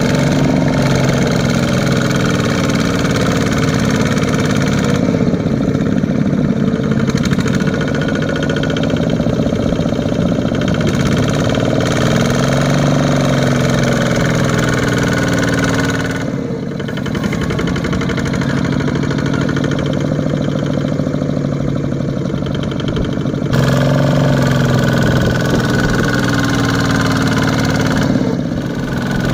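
Single-cylinder diesel engine of a two-wheel walking tractor running hard under load, hauling a loaded rice trailer through deep mud. Its pitch rises and falls as the wheels churn, and the sound changes abruptly a few times.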